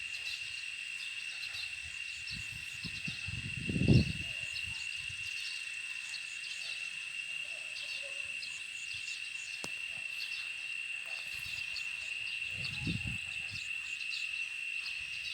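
Crickets trilling steadily at one high pitch, with faint scattered bird chirps. A low rumble swells about four seconds in, and a weaker one near the end.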